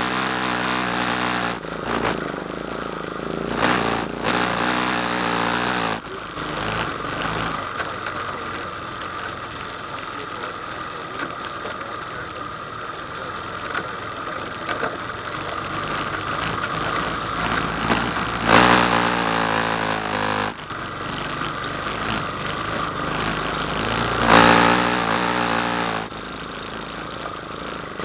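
ATV engine running while being ridden, working harder for the first few seconds, easing off through the middle, then revved up sharply twice, about two-thirds of the way through and again near the end.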